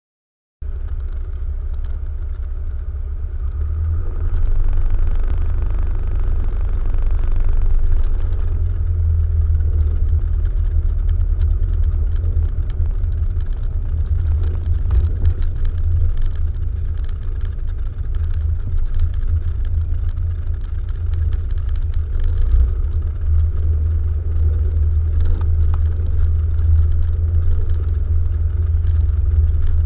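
Piper PA-28 Archer II's four-cylinder Lycoming O-360 engine and propeller running steadily as a deep drone heard inside the cabin while the plane taxis, getting louder about four seconds in. Short clicks and knocks from the airframe come through the drone.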